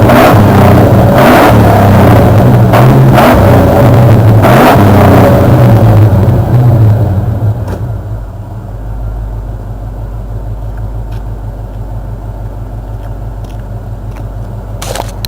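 Ford 302 V8 of a 1991 F-150 running at raised revs, its pitch rising and falling for about seven seconds. It then drops back to a steady, much quieter low idle.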